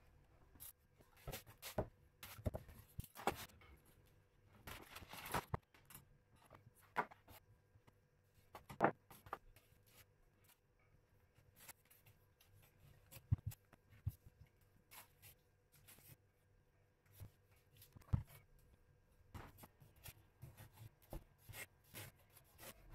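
Quiet handling noises: scattered light taps, knocks and rustles as round stretched canvases and a circular white board are lifted and set down on a cloth-covered desk. The sharpest knocks come about 9, 13 and 18 seconds in.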